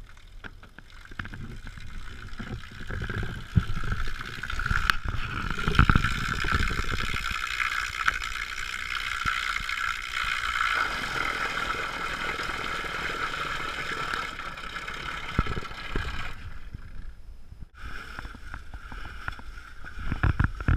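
Electric trolling motor running with a steady whine, its propeller churning and splashing water near the surface. A few low thumps come about six seconds in, and the sound briefly drops out about sixteen seconds in before going on.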